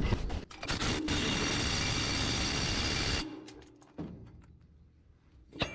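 A power driver with a socket on an extension runs steadily for about two seconds, driving a bolt to fasten a steel skid plate under the dozer's engine oil pan, then stops abruptly. A few light metallic clicks follow.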